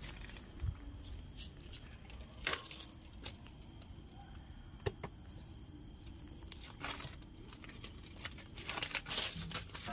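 Scattered light clicks and knocks of handling and stepping on gravel, a few seconds apart, over a faint low steady rumble.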